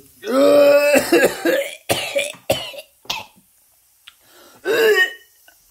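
A man gagging and retching with coughs, revolted by the texture of the escargot he has bitten into. A long strained retch opens, then rough coughing and heaving bursts, then a pause and one more short retch near the end.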